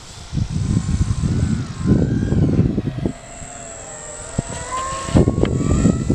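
Brushless electric motor and propeller of a foam-board RC flying wing, its whine rising and falling with the throttle, over heavy wind rumble on the microphone. A few sharp knocks come about five seconds in as the plane comes down hard on the grass.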